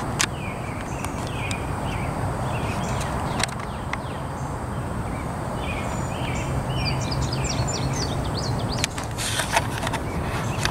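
Birds chirping in short calls over a steady low outdoor rumble, with a few sharp clicks, one just after the start and one about three and a half seconds in.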